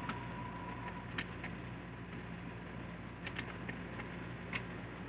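Scattered sharp clicks and light handling noise from a black plastic sheet being fitted over a laptop motherboard, over a steady low electrical hum.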